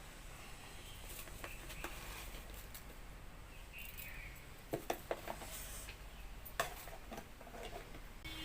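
Quiet eating sounds from a meal of watered rice and fish curry eaten by hand: scattered small clicks and taps, with a few sharper clicks about five seconds in and again a little later.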